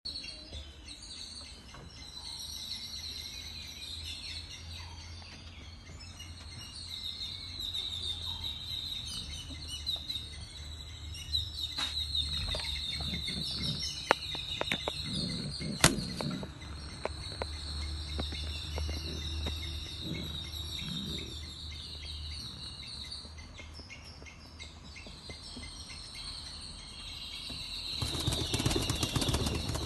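Small birds twittering continuously over a steady low rumble, with a couple of sharp clicks midway. A burst of scuffling noise near the end.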